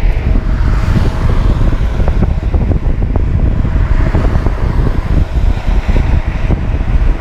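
Heavy wind buffeting on the microphone of a fast downhill ride on a loaded touring bicycle, a steady low rumble with many small rattles and knocks from the road.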